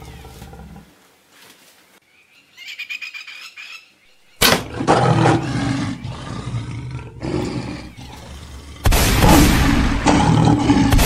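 Lion growling and roaring at close range, breaking in suddenly about four seconds in and again, louder, about nine seconds in.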